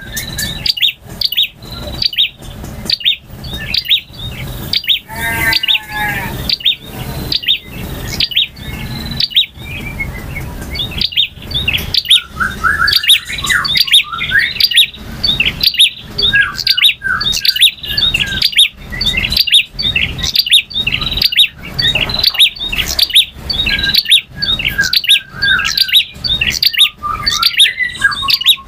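Male prinia (prenjak) singing loudly: rapid sharp chipping notes repeated over and over, mixed with fast trills and short sliding warbled phrases.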